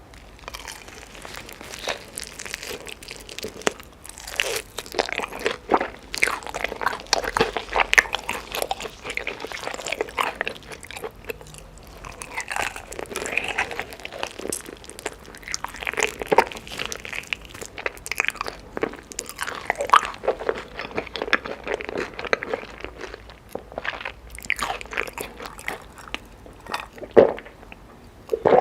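A person biting and chewing chicken, a steady run of irregular clicks and wet smacks of the mouth.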